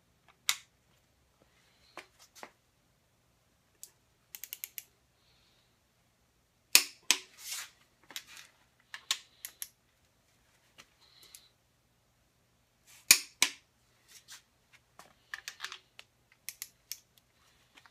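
Torque wrench tightening cylinder-head stud nuts on a Ford 302 V8, on the final pass to 80 foot-pounds. Short runs of quick ratchet clicks as the wrench is swung back are mixed with sharp single clicks; the two loudest come about six seconds apart.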